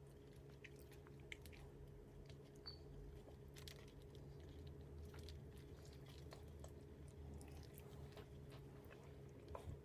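Faint wet squelching and small sticky clicks of bare hands working butter seasoning under and over raw turkey skin, over a low steady hum.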